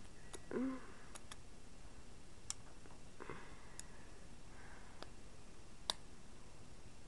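Scattered sharp clicks of plastic LEGO bricks being handled and pressed together, about seven separate clicks spread unevenly. A brief low vocal sound about half a second in.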